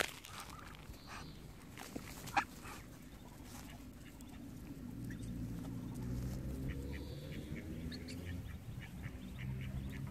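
Muscovy ducks calling close by with low-pitched calls, which get louder from about five seconds in. A couple of short clicks come in the first few seconds.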